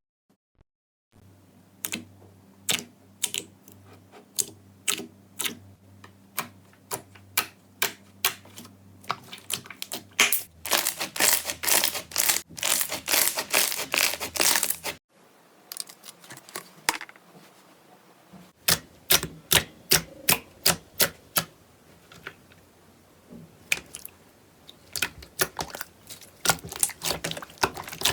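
Slime being squeezed and pressed by hand, making rapid, irregular sharp clicks and pops as air pockets burst in it. The clicking thickens into a dense run about ten seconds in, stops abruptly near the middle, and picks up again a few seconds later.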